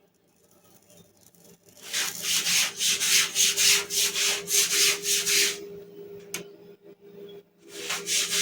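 Rapid back-and-forth scraping, about four strokes a second, running for several seconds and then starting again near the end.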